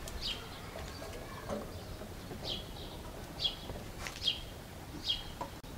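Small bird chirping: short, sharp chirps about once a second over a faint background.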